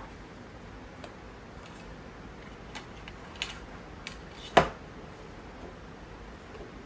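Handling clicks from a portable jump starter and its battery clamp cables: a few light plastic clicks, then one sharp clack about four and a half seconds in.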